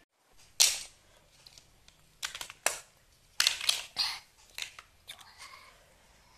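Handling of a plastic toy fire engine: a string of sharp plastic clicks and rattles, with several close together between about two and four seconds in.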